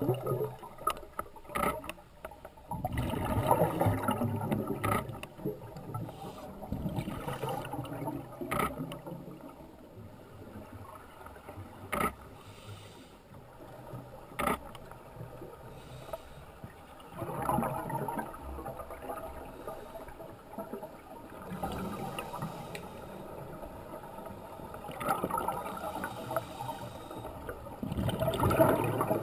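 Underwater sound of a scuba diver breathing through a regulator: the exhaled bubbles gurgle in surges every few seconds, with a few sharp clicks in between.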